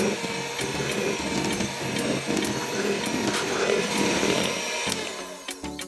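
Electric hand mixer running, its beaters churning flour into cake batter in a plastic bowl; the sound dies away about five seconds in.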